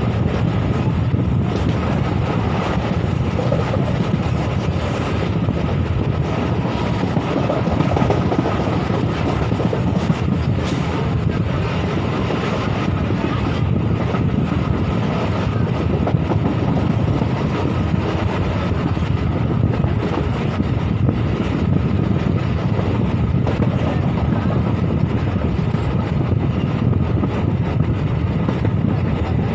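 Passenger train running at speed, heard from on board: a steady rumble and rattle of steel wheels on the rails, with an occasional clack.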